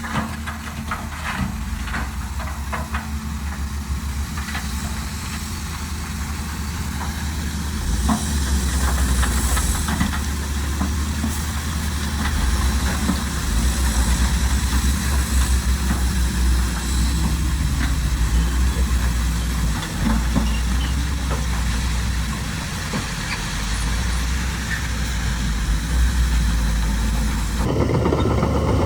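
Heavy diesel engine of earthmoving machinery running, working harder from about eight seconds in, its level rising and falling under load. The sound changes abruptly near the end.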